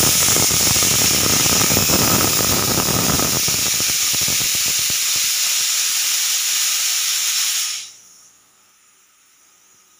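Stovetop pressure cooker whistling: steam jets out past the weighted whistle valve in a loud, steady hiss, with a sputtering rattle through the first few seconds. It cuts off suddenly about eight seconds in, leaving only a faint hiss.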